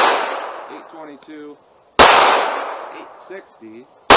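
A .380 ACP pistol firing: one shot about two seconds in and another right at the end, each sharp report trailing off in a long echo over a second or so. The echo of a shot fired just before fills the opening.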